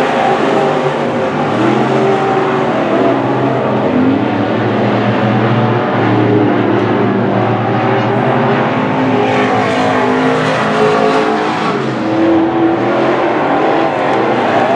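Several WISSOTA Midwest Modified dirt-track race cars' V8 engines running hard together, a steady loud blend of engines rising and falling in pitch as the cars go around the oval.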